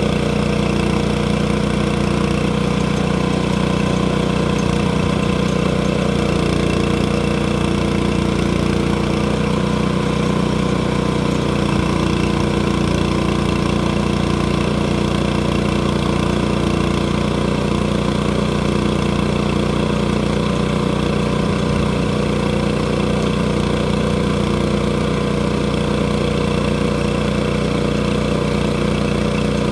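Sawmill engine running steadily at one constant speed, with no change in pitch or load.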